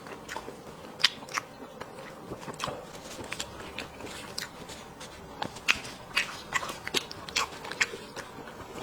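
Close-miked eating of spicy sheep's head: irregular sharp clicks and smacks of biting and chewing, a few every second.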